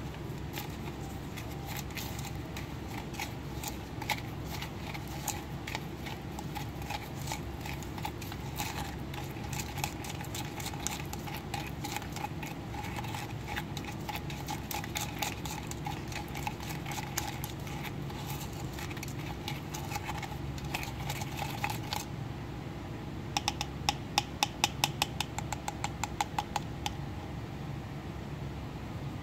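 Plastic spoon stirring a thick paste in a clear plastic cup, ticking and scraping against the cup wall over a steady background hum. Near the end comes a quicker run of louder clicks.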